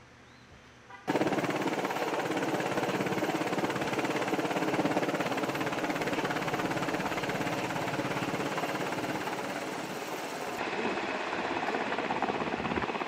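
UH-60 Black Hawk helicopter flying overhead, its rotor beating rapidly; the sound cuts in suddenly about a second in and changes slightly near the end.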